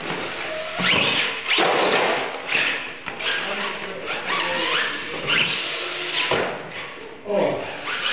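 The motor of a radio-controlled scale monster truck whines, rising and falling in pitch as the truck speeds up and slows while it drives around, with voices in the background.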